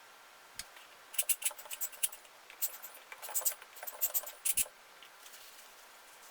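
A quick run of sharp clicks and scrapes from hard objects, over about four seconds, with a soft knock as it starts and another as it stops.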